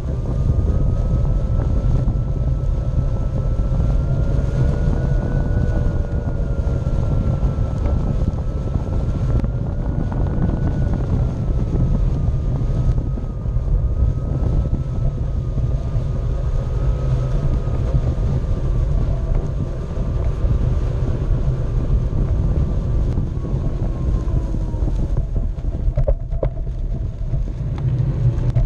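Onewheel electric skateboard riding fast over grass: heavy wind rumble on the board-mounted microphone and tyre noise, with the hub motor's faint whine drifting up and down in pitch as the speed changes.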